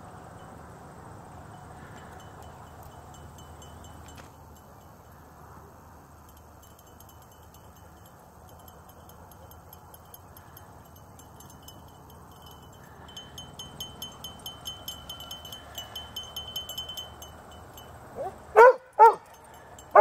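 Dog giving two sharp, high yips in quick succession near the end, and a third right at the close, over steady background outdoor noise and a faint high, rapid ticking.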